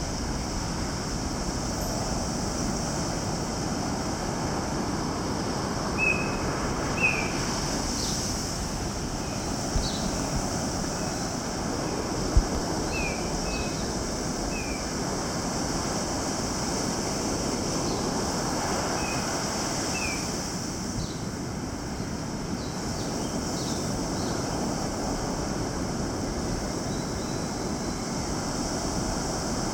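Steady wash of ocean surf, with short, high bird chirps every few seconds through the middle.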